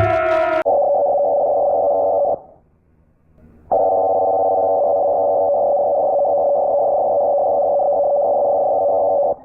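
Emergency alert attention tone: a steady electronic chord of several held pitches with a thin, telephone-like sound. It follows the tail of a falling tone, cuts out about two and a half seconds in for just over a second, then comes back steady.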